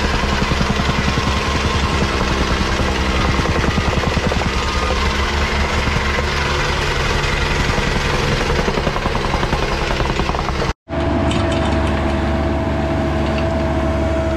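Small gas-powered compactor pounding soil in a trench with rapid, even strokes. After an abrupt cut near the end, a Cat 304E2 mini excavator's engine runs steadily with a held high tone.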